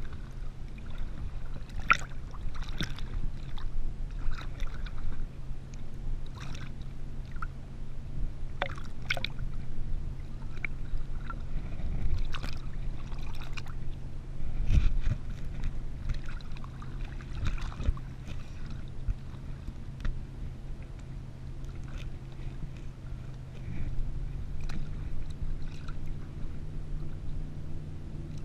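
A floating kneeboard in water with its camera pressed against a wet neoprene vest, giving scattered knocks and rubbing sounds and water sloshing. Under it runs a steady low hum from the idling tow boat's engine, stepping up in pitch near the end.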